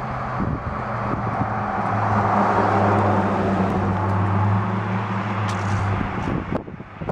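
A motor vehicle driving past on the street: a low engine hum and tyre noise swell up, peak a few seconds in, and fade away near the end.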